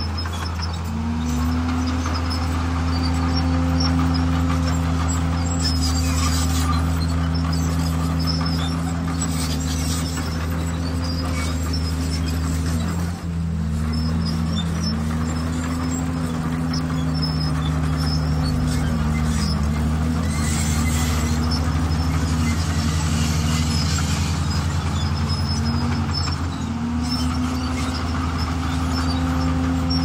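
Bulldozer's diesel engine working steadily, its pitch repeatedly sagging and recovering as load comes on and off, with a brief drop about halfway through.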